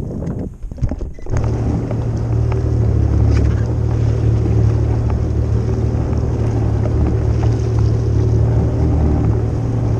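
After about a second of knocks and rustling, a jet ski's engine runs steadily with a low hum at idle, with water sloshing and splashing against the hull.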